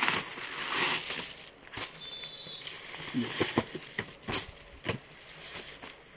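Clothing and plastic packaging rustling and crinkling as a boy's suit jacket is lifted and laid flat, with a string of sharp little snaps and taps in the middle.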